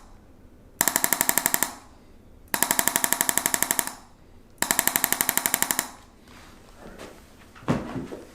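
Handheld chiropractic adjusting instrument firing three bursts of rapid clicking thrusts, about a dozen a second for roughly a second each, delivered to a stiff wrist joint to get it moving. A single thump follows near the end.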